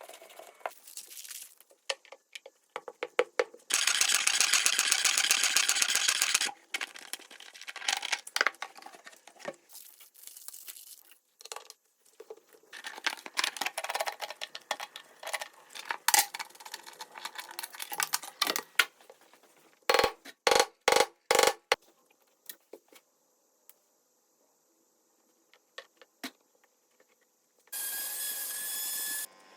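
Clicks and metal clatter of tools at work on a washing machine being taken apart for a bearing replacement. There is a dense stretch of steady noise a few seconds in, and a quick run of about five sharp knocks about two-thirds of the way through.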